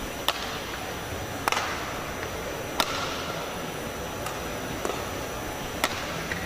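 Badminton rackets striking a shuttlecock back and forth in a rally, about six sharp hits a second or so apart, over a steady background of arena noise.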